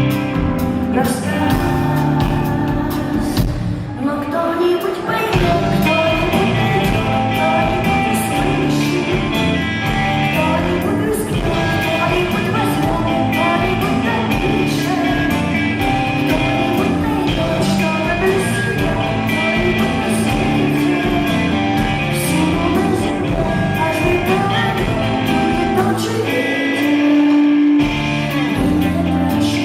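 Live rock band playing, with a singer and guitars.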